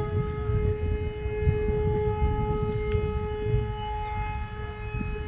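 A warning siren sounding one long, steady, high note, with wind buffeting the microphone underneath.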